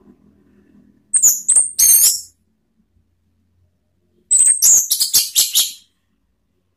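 Orange-headed thrush singing: a short phrase of very high, sharp whistled notes about a second in, then a longer run of rapid high notes after about four seconds.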